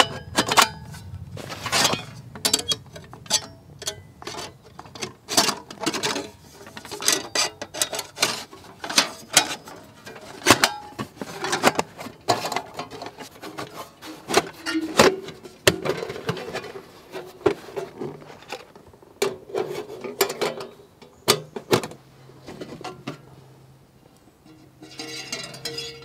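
Thin sheet-metal panels of a flat-pack reflector oven clanking and rattling as they are handled and slotted together: many quick sharp metallic clicks and knocks, some with a short ring. Guitar music comes in near the end.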